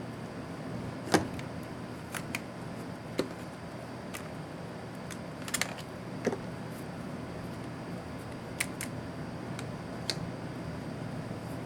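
Scattered light clicks and taps of laptop parts and small tools being handled during disassembly, the sharpest about a second in, over a steady low hum.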